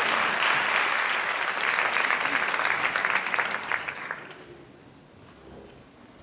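Theatre audience applauding, the clapping thinning out and dying away about four seconds in.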